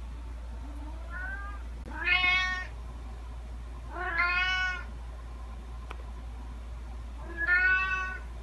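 Domestic cat meowing: a faint short call, then three loud, drawn-out meows, the third after a longer pause.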